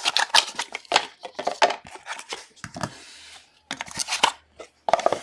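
Trading cards and their plastic wrappers being handled: a quick run of crinkling, rustling and tearing noises, pausing briefly about three seconds in.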